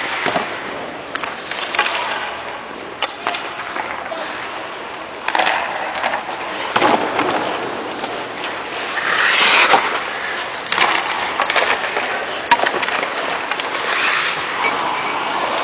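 Ice hockey skate blades scraping and carving on rink ice in swells as the skater strides and stops, with several sharp clicks of stick and puck scattered through.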